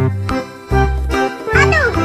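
Upbeat background music with a steady bass-and-chord beat and a short falling glide in pitch near the end.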